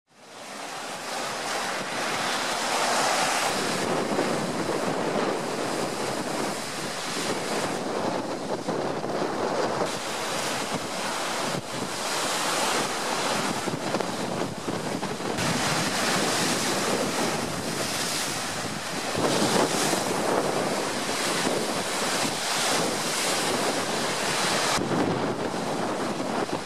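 Storm-whipped lake waves breaking and splashing against a quay wall and jetty, with strong storm wind gusting over the microphone. The rushing noise fades in at the start, then swells and eases.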